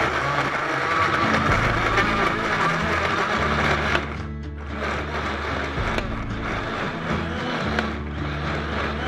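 Electric countertop blender running at speed, puréeing tomatoes, coriander, mint and green chilli with water into a tomato paste. It starts suddenly, eases off briefly about four seconds in, then runs on, with background music underneath.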